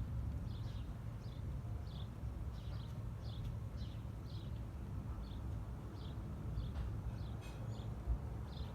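Small bird chirping in short calls, about two a second, over a steady low rumble.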